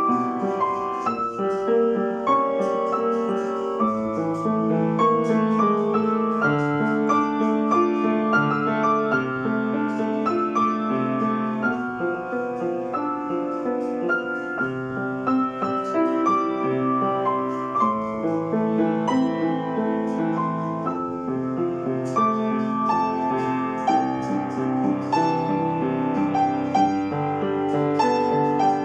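Solo piano playing an original piece: a melody over held, overlapping chords, with lower bass notes joining about four seconds in.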